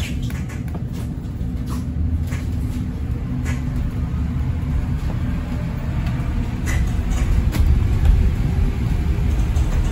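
Inside an ADL Enviro400EV battery-electric double-decker bus on the move: a steady low rumble of tyres and body with scattered knocks and rattles. A faint motor whine rises in pitch from about halfway through as the bus gathers speed.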